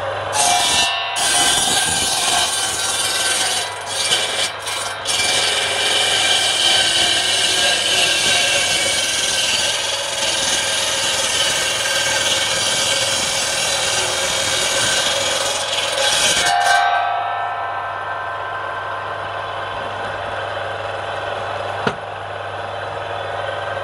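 Circular saw bench ripping lengthwise through a palm log, a loud, rough cutting noise for about sixteen seconds. Then the cut is through and the blade spins free with a quieter, steady hum.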